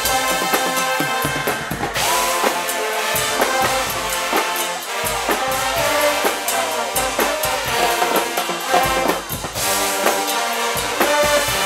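Guggenmusik carnival band playing: massed trumpets and trombones over a steady pounding beat of drums and cymbals.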